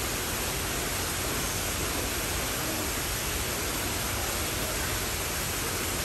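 Steady rush of running water spilling over rocks into a shallow pool, an even hiss with no breaks.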